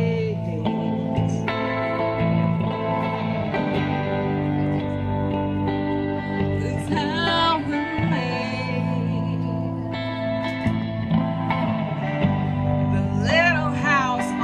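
Live band music: electric guitar playing under a woman singing, her voice wavering on long held notes about halfway through and near the end.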